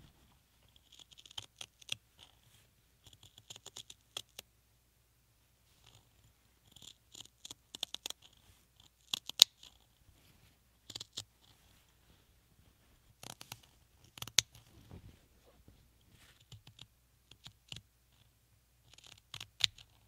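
Small thread snips cutting cotton fabric around a printed pattern piece: runs of quick, crisp snips with short pauses between them.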